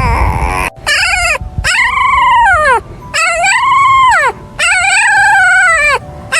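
Puppies howling in a string of about four long calls, each rising and then falling in pitch, with brief pauses between them.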